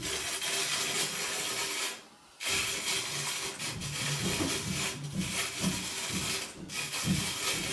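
Metal hand-cranked coffee mill grinding roasted coffee beans: a dense, steady grinding rattle that stops for a moment about two seconds in, then carries on.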